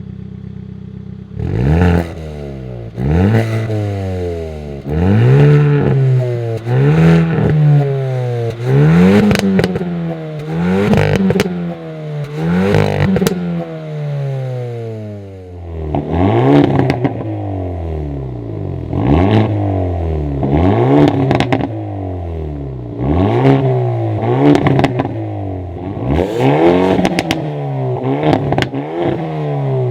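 Hyundai N hot hatch's turbocharged four-cylinder engine idling briefly, then blipped over and over, about one rev every second. Each rev rises quickly and falls back, with pops and crackles from the exhaust on the overrun. The tone changes about halfway through.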